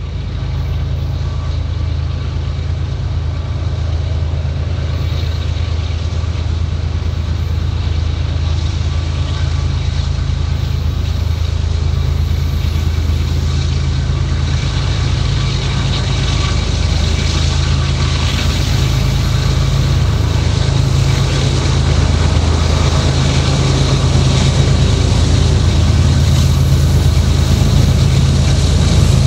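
Norfolk Southern freight train's diesel locomotives approaching, their engines running with a steady low drone that grows slowly louder as they near.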